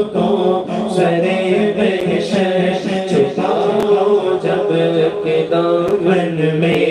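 A man's unaccompanied voice singing an Urdu devotional kalam (naat) into a microphone, holding long, slowly shifting notes in a chanting style.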